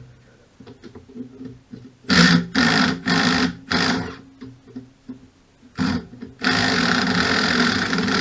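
Handheld power driver with a 13 mm socket running in short bursts, four quick spins then a brief blip and a longer steady run near the end, backing out the bell-housing bolts on a generator engine.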